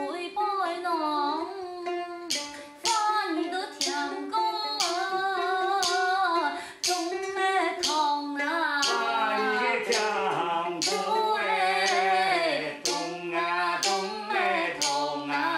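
A woman singing a Hakka mountain song (shan'ge) solo, keeping time with sharp clacks of hand-held clappers about twice a second. A lower second line joins underneath about nine seconds in.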